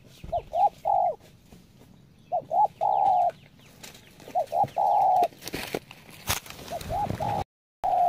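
Spotted dove cooing: a phrase of two short coos and a longer held coo, repeated about every two seconds. Partway through there is a brief rustle and a sharp click, and the sound breaks off for a moment near the end.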